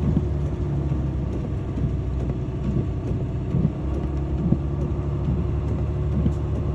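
Vehicle driving at road speed: a steady low rumble of engine and road noise.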